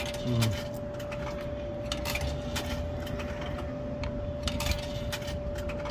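Coins fed one at a time into a vending machine's coin slot, clinking and clicking as they drop through the coin mechanism. Under it runs a steady tone, and a low thump comes near the start.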